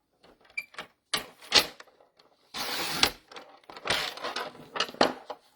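Paper trimmer cutting a thin strip off cardstock: several sharp clicks of the blade carriage, and twice a scraping stretch of about half a second as the blade slides along the track.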